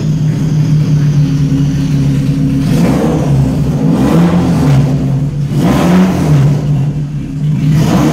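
Toyota 3S-GE inline-four engine running, revved several times by hand at the throttle, its pitch rising and falling back to a steady run between blips.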